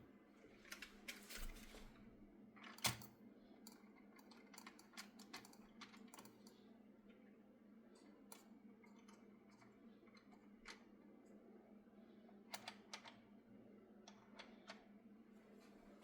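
Faint, irregular clicks and taps, a few in quick clusters, over a steady low electrical hum.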